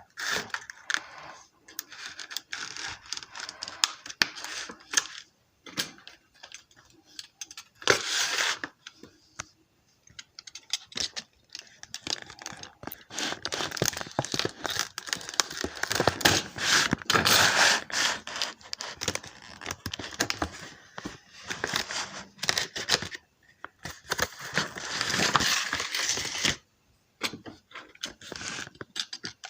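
Stiff plastic clamshell packaging being cut with a knife and pulled apart by hand: irregular crackling, crinkling and tearing in bursts, with quieter pauses between them.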